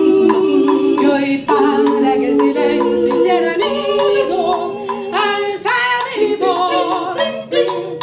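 Group of four women singing a cappella, several voices in harmony. A few sharp percussive hits come near the end.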